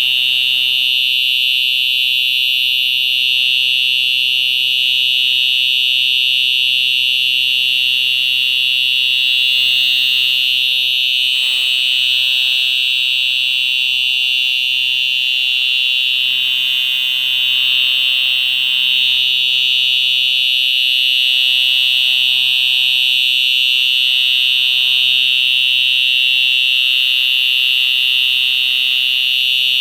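Simplex TrueAlert 4903-9425 electronic horn strobe, a conventional 4-wire horn, sounding after its pull station has been pulled: a loud, high-pitched, steady electronic alarm tone with no breaks.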